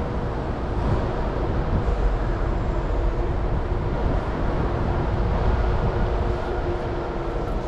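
Steady low rumble with a faint steady hum: the surrounding street traffic mixed with a DC fast charger running mid-charge at about 32 kW.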